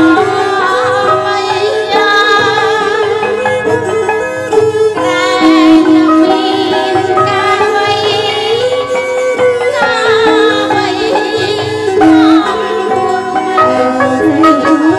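Khmer Bassac opera music: a traditional ensemble plays a sliding, ornamented melody over a steady low drum pattern.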